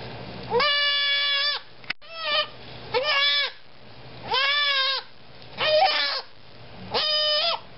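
Buck goat kid bleating loudly six times, each call lasting about half a second to a second, while a hot disbudding iron is held on its horn bud.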